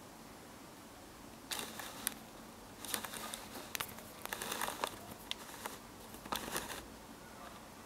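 Several bursts of crinkly rustling and crackling, the first about one and a half seconds in and the busiest in the middle, with faint room hiss between them.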